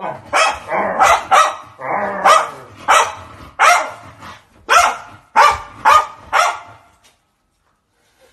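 Shiba Inu barking over and over, about ten sharp barks with a rougher, drawn-out one in between, stopping about seven seconds in.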